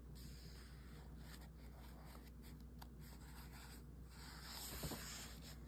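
Faint rustling of a picture book's paper page as it is turned and held open.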